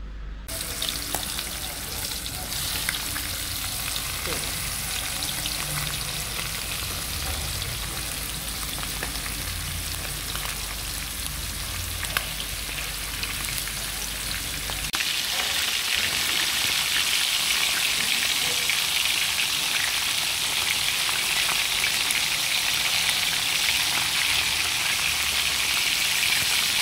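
Floured whole catfish frying in hot oil in a skillet: a steady sizzle, which gets louder and brighter about halfway through.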